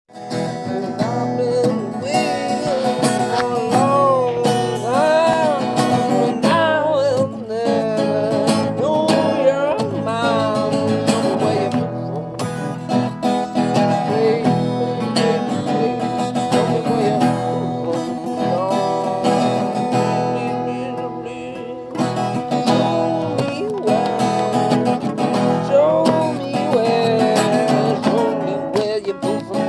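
Two acoustic guitars played together, strummed and picked, with a voice singing along.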